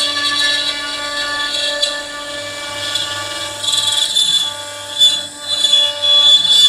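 CNC router spindle running with a steady high whine as its bit carves ash wood, the cutting noise rising and falling as the tool moves.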